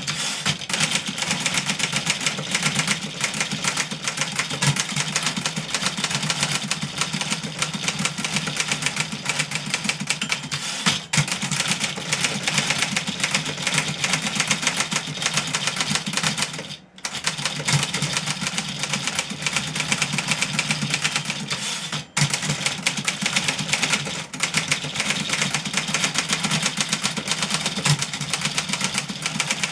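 Fully serviced 1963 Remington Model 11 portable typewriter being typed on at speed: a continuous rapid clatter of keys and typebars striking, broken by a few brief pauses.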